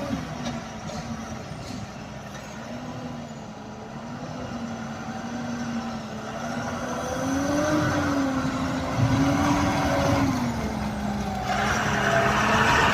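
Motorcycle engine running, its pitch rising and falling as the throttle is opened and eased. Near the end a loud rushing hiss joins it.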